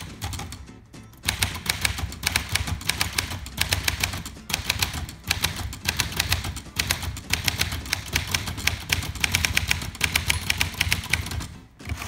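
Fast typing on a 1947 Smith Corona Sterling manual typewriter: a quick run of keystrokes as the type bars strike the platen, broken by a few short pauses.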